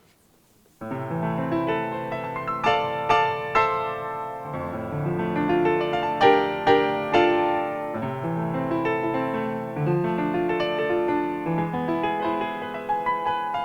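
Solo piano playing a lively piece, starting abruptly about a second in with a run of sharply struck notes and chords.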